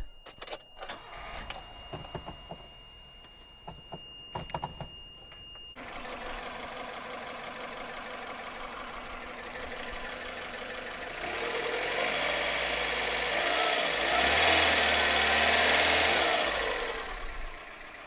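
Toyota 1.5-litre 12-valve four-cylinder engine with distributor ignition running after its corroded distributor cap and rotor were cleaned; it comes in suddenly about six seconds in, then revs up for several seconds and drops back near the end.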